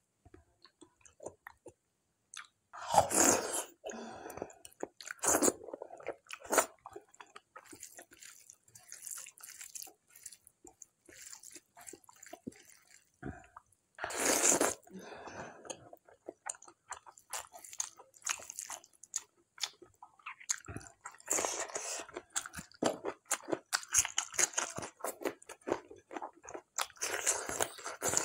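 Close-up chewing and mouth sounds of someone eating spicy mutton curry and dhido by hand. Several louder short bursts come through, the loudest about three seconds in, another as a handful of dhido goes into the mouth about fourteen seconds in, and more near the end.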